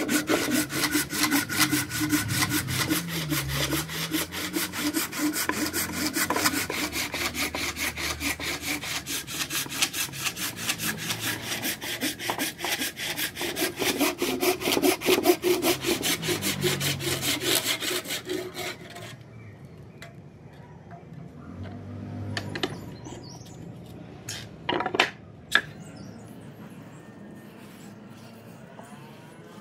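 A hand saw ripping lengthwise through a vise-clamped block of Siamese rosewood, a dense hardwood, in quick, steady back-and-forth strokes. The sawing stops about two-thirds of the way through, and a couple of sharp knocks follow.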